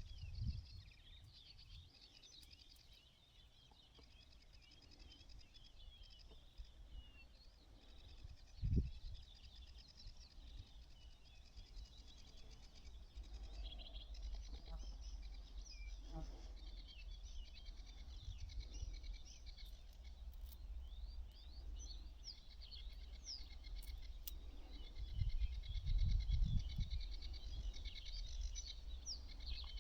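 A chorus of small songbirds chirping and singing continuously, many overlapping short calls. Under it a low rumble, with a brief low thud about a third of the way in and a stronger spell of rumbling near the end.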